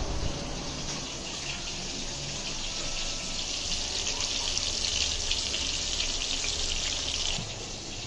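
Running water pouring steadily, heavier from about four seconds in and easing off sharply near the end.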